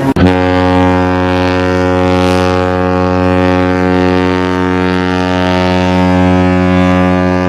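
One long, steady, deep horn blast on a single low note, held without change.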